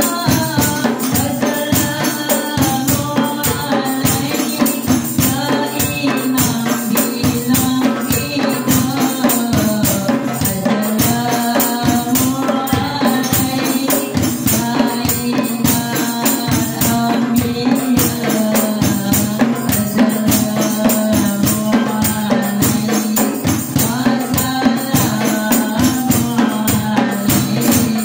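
Women singing sholawat, an Islamic devotional song, over a steady, busy beat of rebana frame drums, a jingling tambourine and a larger drum.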